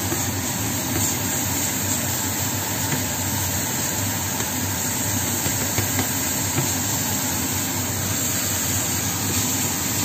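Diced tomatoes, garlic and shallots frying in oil in a stainless pan, a steady sizzling hiss, with a few light clicks of a spatula stirring against the pan.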